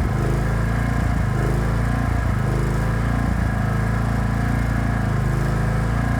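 Small engine of a generator welding machine running steadily at constant speed.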